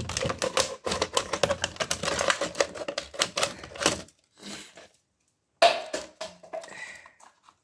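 A thin plastic drink bottle crackling as it is handled and cut with scissors: dense rapid crackles for about four seconds, then a sudden break to silence, then a second shorter burst.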